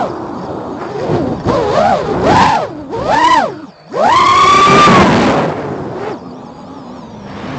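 FPV quadcopter's electric motors and propellers whining, the pitch swooping up and down with the throttle. The sound drops out briefly just past the middle, then comes back loud and high for about a second before falling away.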